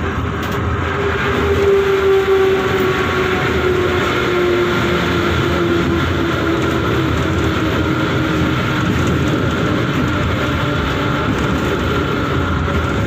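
Moscow metro train running at speed, heard from inside the carriage: steady rumble of wheels on rails, with a whine that glides slowly down in pitch over the first several seconds.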